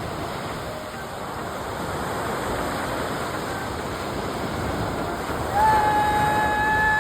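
Ocean surf washing ashore with wind on the microphone, a steady rushing noise. About five and a half seconds in, a loud, steady pitched tone starts and holds for about a second and a half.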